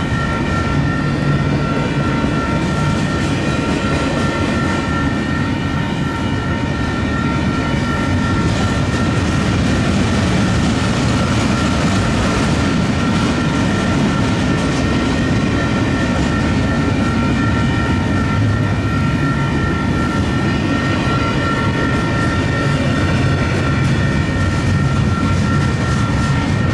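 Union Pacific double-stack intermodal train's well cars rolling past: a steady rumble of steel wheels on rail, with steady high-pitched tones held over it.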